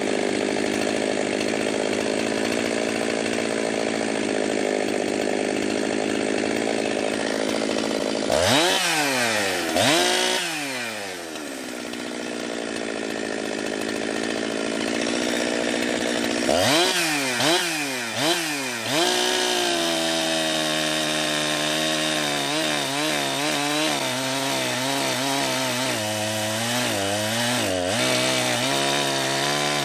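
Jonsered 2071 two-stroke chainsaw running in wood. It runs steadily at first, is revved up and down twice about eight seconds in, and then several more times quickly a little later. It then runs on at a lower, wavering engine speed.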